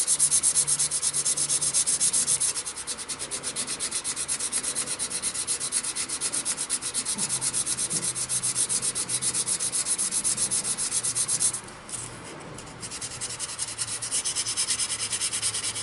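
220-grit sandpaper held by hand against an offset-turned wooden hammer handle spinning on a wood lathe: a fast, evenly pulsing rasp over the lathe's low hum. It is louder for the first couple of seconds and eases off for about a second a little before the end.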